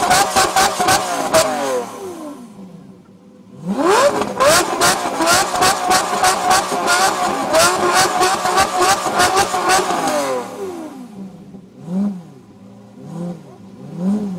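Lamborghini Murciélago V12 revved hard through tall vertical exhaust stacks, held high with a rapid stutter. It drops off about two seconds in, flares back up about a second later and is held for some six seconds, then falls away into three short throttle blips near the end.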